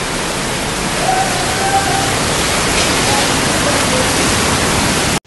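Torrent of muddy floodwater rushing through a street, a steady loud wash of water noise with faint voices under it, cutting off abruptly at the very end.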